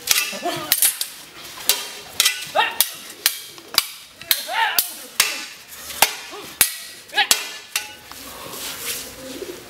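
Sharp wooden clacks of Kalaripayattu weapons, a long stick and a shield, striking each other in sparring: about a dozen hits in quick, irregular succession, with short rising shouts among them. The strikes stop about eight seconds in.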